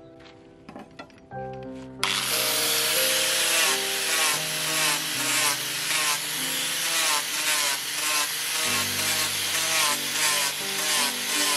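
Power sander with a sanding pad grinding a wooden knife handle and its metal ferrule: a loud, steady abrasive grind that starts suddenly about two seconds in. Background music plays throughout.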